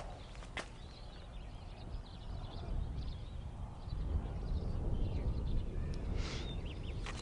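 Wind buffeting the microphone outdoors, a low rumble that gets stronger partway through, with faint small-bird chirps above it.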